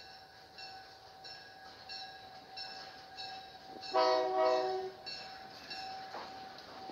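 Model diesel locomotive running on a tabletop layout: a steady whine with light regular clicks a little under twice a second. About four seconds in comes a horn blast lasting about a second from the model's sound system, the loudest sound here.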